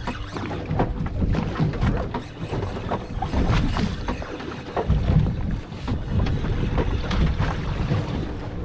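Wind buffeting the microphone on a boat at sea, over a steady low rumble, with irregular knocks and clatter.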